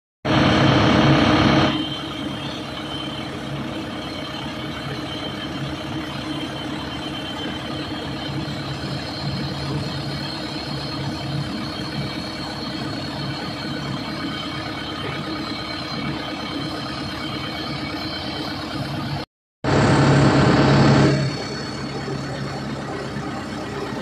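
Heavy truck engine running steadily on a dirt road. A louder, brighter burst of about a second and a half comes right at the start and again about 20 seconds in.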